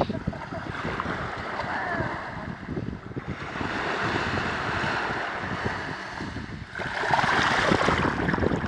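Small waves washing over shallow water and sand at the shoreline, swelling twice, about a third of the way in and louder near the end, with wind buffeting the microphone.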